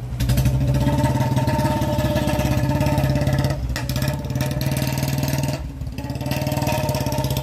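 Royal Enfield Bullet's single-cylinder engine running loud with a rapid thumping exhaust beat as the bike is ridden off, easing off briefly twice, about three and a half and six seconds in. The bike was seized for firing firecracker-like pops from its exhaust.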